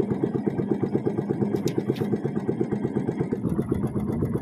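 Small boat engine running steadily with a rapid, even putter.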